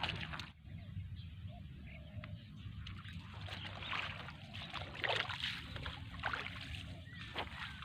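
Water sloshing and splashing, with a few short knocks and rustles over a steady low rumble.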